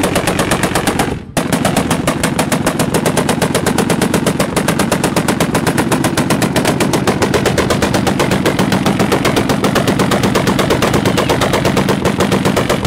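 Heavy machine gun mounted on a pickup truck firing sustained rapid automatic fire, with a brief break a little over a second in.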